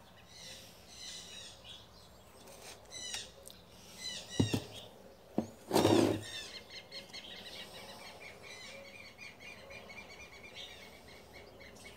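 Small birds chirping over and over, turning into a steady run of quick repeated chirps in the second half. A couple of light knocks and a louder thump near the middle come from hands working potting soil in the pots.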